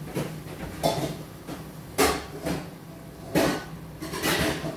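Irregular sharp clatters and knocks of kitchenware, about six in under five seconds, over a steady low hum.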